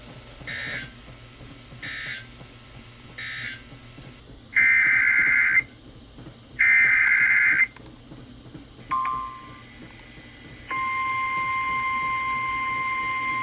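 Emergency Alert System digital data bursts: three short faint chirps, then two loud one-second screeching bursts. About ten seconds in, a steady, unbroken alert tone starts and holds, signalling the start of a new warning.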